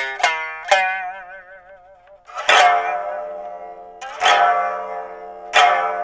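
Biwa, the Japanese lute, played solo: a few quick plucked notes, one held note wavering in pitch as it is bent, then three hard plectrum strikes about a second and a half apart, each left to ring.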